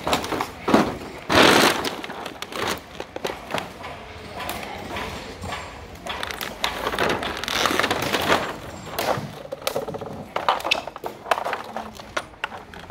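Footsteps crunching and scraping over charred wood and metal debris, in uneven crackles and thuds.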